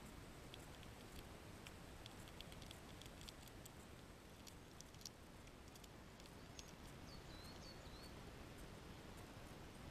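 Faint scattered clicks and crackles of a red squirrel nibbling and handling peanuts close by, over low hiss. A faint high wavering chirp comes twice near the end.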